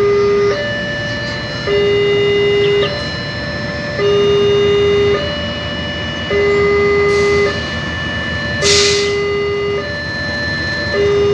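Railway level-crossing warning alarm sounding a steady alternating two-tone pattern, low then high, each tone held about a second. Under it is the low rumble of a KAI CC206 diesel-electric locomotive passing the crossing. A brief hiss sounds about nine seconds in.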